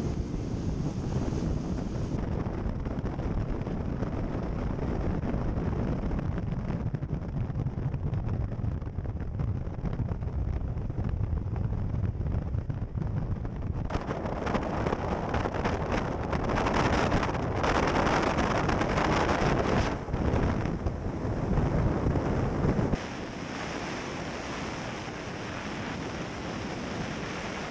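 Wind buffeting the microphone over the rush of a boat running across open water. The noise shifts abruptly a few times and is loudest around the middle.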